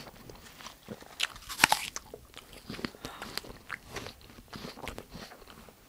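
Bite into a crisp green apple, loudest about a second and a half in, then chewing with many small crunches.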